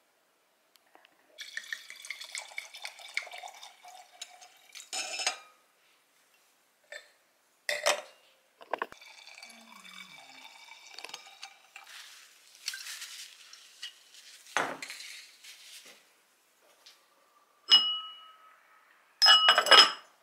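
Dishes, glassware and cutlery clinking and being set down, with stretches of running water between. The loudest clinks come near the end, two of them ringing briefly.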